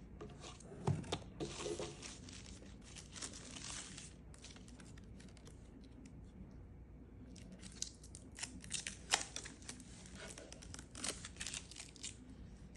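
Packaging being handled and unwrapped: bursts of crinkling and tearing with a few small clicks and knocks, and a quieter pause in the middle.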